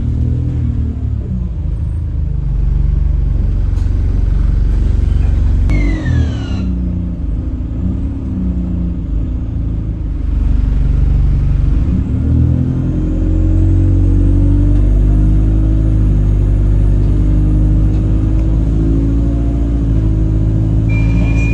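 Alexander Dennis Enviro 200 bus running under way: the drivetrain's pitch drops, then climbs again as it pulls away about twelve seconds in and holds steady. A brief falling whistle sounds about six seconds in, in keeping with the strange whistling noise the uploader suspects comes from the gearbox.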